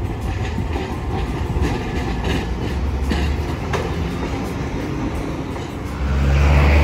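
Hiroden 1900-series tram rolling across a streetcar track junction, its wheels clacking sharply several times over the points and rail joints above a steady rumble. About six seconds in, a louder low rumble comes in.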